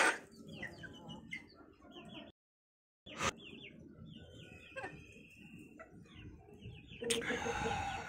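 A flock of young Aseel chickens cheeping and clucking: many short, high, falling chirps. There are a sharp knock at the start and another about three seconds in, the sound cuts out completely for under a second a little after two seconds in, and there is louder rustling near the end.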